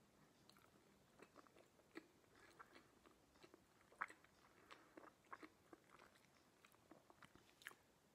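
Faint chewing of a mouthful of pizza: small wet mouth clicks and smacks at an uneven pace, the sharpest about four seconds in.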